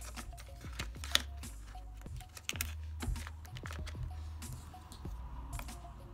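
Light clicks and taps of long fingernails and fingers handling a paper insert and the cardboard of a phone box, the sharpest click about a second in, over soft background music with a low bass line.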